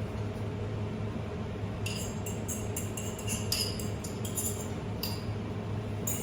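A metal fork clinking and scraping against a bowl, a quick irregular run of ringing clinks starting about two seconds in, over the steady hum of a kitchen range hood fan.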